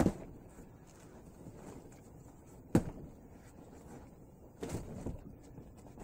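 Forearms and hands knocking against a self-made Wing Chun dummy wrapped in duct tape. One knock comes right at the start, a louder one nearly three seconds in, and a quick run of several knocks near the end.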